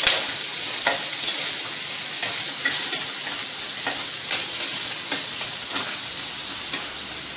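Sliced onions, green chillies and curry leaves sizzling in hot oil in a kadai, with a steady high hiss. A metal spatula scrapes and taps against the pan as they are stirred, roughly once a second.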